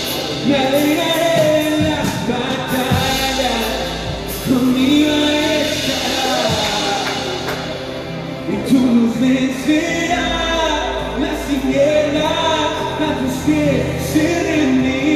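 Live worship music: a man sings lead over a band with acoustic and electric guitars, joined by a woman singing backing vocals.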